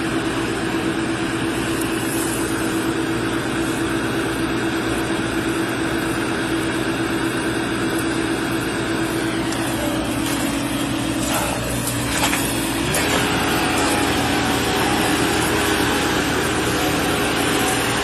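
An engine running steadily at one pitch. About two-thirds of the way through, the pitch drops slightly and the sound grows a little louder, with some rustling just before.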